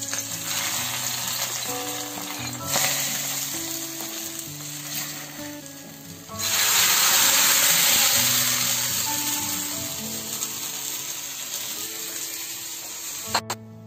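Hot coconut oil with fried shallots and curry leaves sizzling as the tempering is poured into a coconut-milk fish curry, with a second, louder sizzle about six seconds in that fades slowly. Soft background music plays under it.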